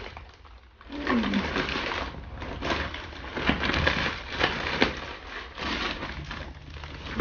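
Hands rummaging inside a handbag, rustling and crinkling the plastic packing stuffed in it in an irregular run of crackles.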